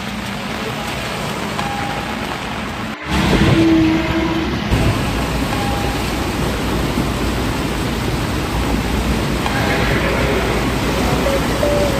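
Steady hiss of rain with tyre noise from cars on a wet highway. About three seconds in it cuts to the louder, steady rush of the flooded Daman Ganga river running fast and high.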